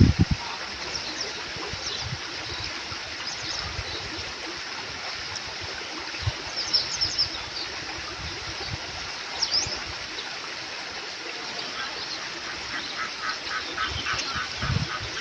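A small stream flowing steadily, with short high bird chirps scattered throughout. From about twelve seconds in, a fast, evenly spaced series of calls comes in, around five a second.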